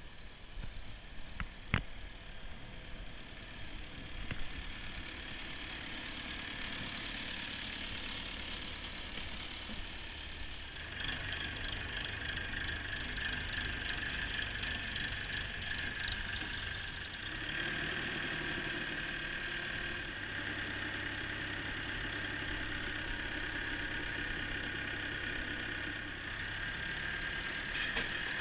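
Massey Ferguson 165 tractor's four-cylinder diesel engine running steadily while towing a Dalbo Cambridge roller. About eleven seconds in it becomes louder and closer, with a steady high whine over the engine, and steps up again a few seconds later; a single sharp click comes near the start.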